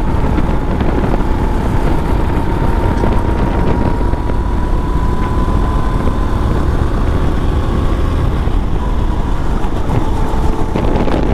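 Go-kart engine running at racing speed, heard from the driver's seat with wind buffeting the microphone. A faint whine rises slowly in pitch and then eases down toward the end as the kart goes into a corner.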